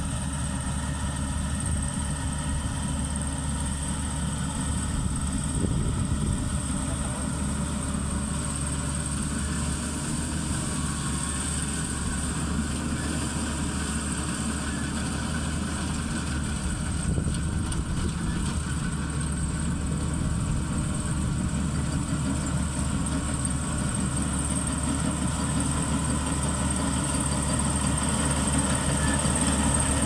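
Maxxi Bimo 102L rice combine harvester's engine running steadily while it harvests, growing a little louder near the end as the machine comes closer.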